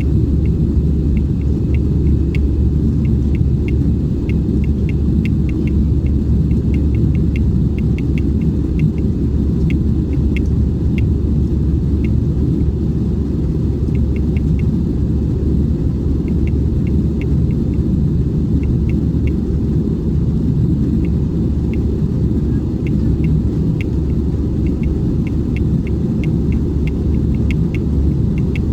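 Airbus A320 cabin noise in flight: a steady low roar of engines and airflow, even in level throughout, with many short faint ticks scattered through it.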